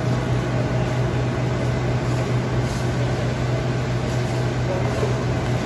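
Steady low mechanical hum that runs on without change.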